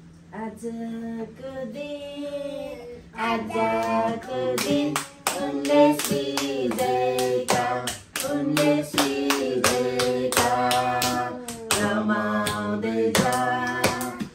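People singing a song, with hand-clapping in a steady beat that joins in about four seconds in.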